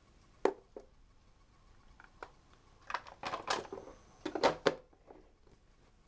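Hard plastic toy parts clicking and clattering as an RSPCA horse rescue ambulance playset is handled and folded shut, with a few single clicks early and a dense run of knocks from about three to five seconds in.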